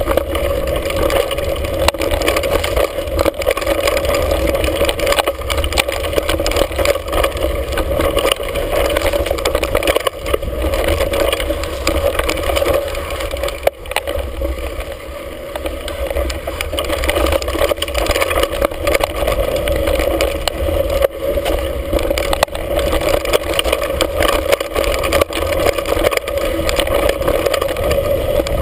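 Mountain bike descending a dirt singletrack, heard from a handlebar-mounted camera: steady wind buffeting on the microphone and tyre rumble over dirt and rock, with frequent rattles and knocks from the bike. The noise eases briefly about halfway through.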